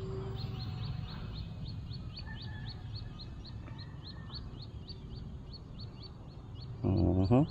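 High, short chirps repeated evenly about four times a second over a low steady hum. Just before the end comes a short, loud pitched sound like a voice.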